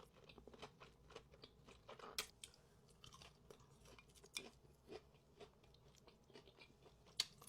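A person chewing a mouthful of food close to the microphone: faint, irregular mouth clicks and small crunches.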